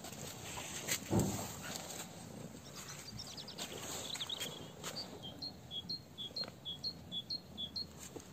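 Footsteps of rubber clogs on a paved garden path, with one heavier thump about a second in. From about halfway, a small bird sings a repeated two-note phrase, high then low, about four notes a second.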